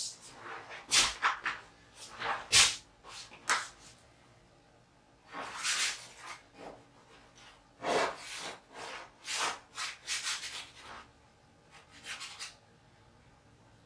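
Paintbrush loaded with heavy body black acrylic dragging across stretched canvas: a series of short scratchy strokes in clusters, with a pause after about four seconds and another near the end. A sharper knock about two and a half seconds in.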